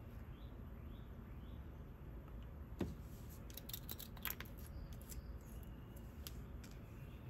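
Faint light clicks and ticks of small metal jewelry pieces being handled: one a little under 3 seconds in, then a quick cluster about a second later, over low steady background noise.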